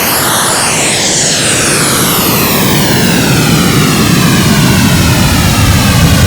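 KORG iMS-20 synthesizer sound effect: a loud rushing noise with a sweeping, downward-sliding whoosh, swelling slightly and getting deeper toward the end, like a jet passing over.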